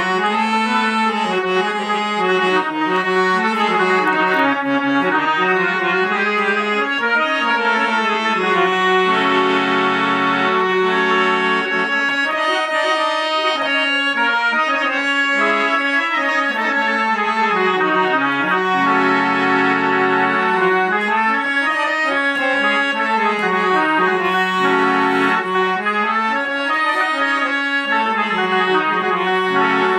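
Scale-changer harmonium played with the bellows pumped by hand: a continuous melody of held and stepping notes over lower sustained notes.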